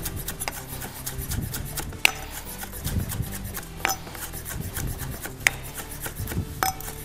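Chef's knife rapidly chopping fresh mint leaves on a wooden cutting board: a fast run of light taps of the blade on the board, with a few sharper knocks.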